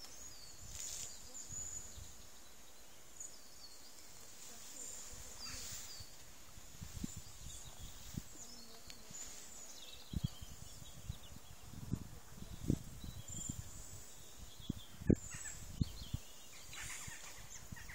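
Quiet open-air ambience on a rural station platform: faint short bird chirps now and then, with low irregular thumps on the microphone that come more often in the second half, the sharpest knock about two-thirds of the way through.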